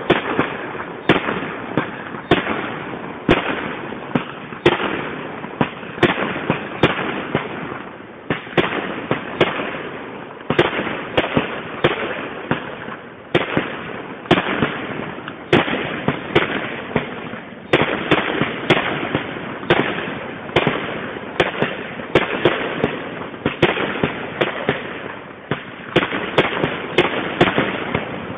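Aerial firework shells bursting in a steady barrage, a sharp bang about every second over a continuous noisy wash between them.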